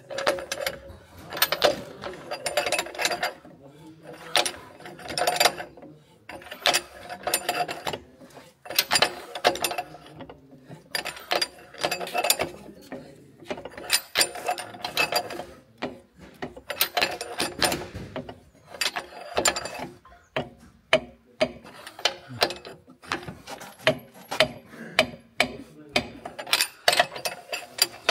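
Hand socket ratchet wrench clicking in short repeated strokes, a burst of rapid clicks every second or so with brief pauses, as nuts are turned.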